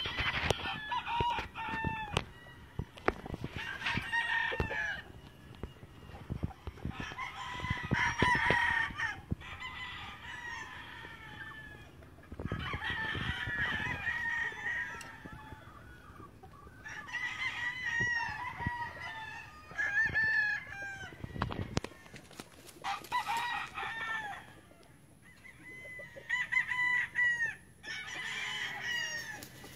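Several gamefowl roosters crowing, their calls overlapping in bouts every few seconds.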